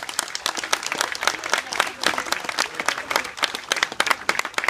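Crowd applauding: many hands clapping in a dense, uneven patter.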